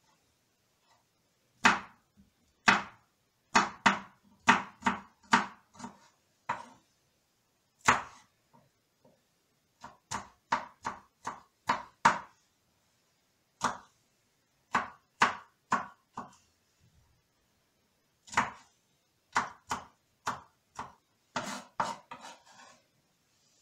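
Kitchen knife cutting garlic cloves into large pieces on a wooden cutting board: sharp knocks of the blade striking the board, in short irregular runs with pauses between them.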